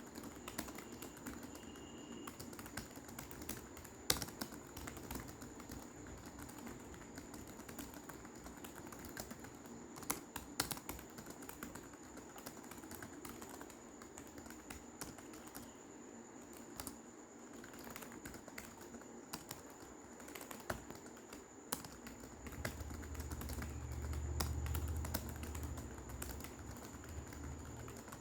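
Fast, continuous typing on a computer keyboard during a typing speed test, with rapid, uneven keystroke clicks and a few sharper key strikes. A low rumble swells for a few seconds near the end, and a faint steady high whine runs underneath.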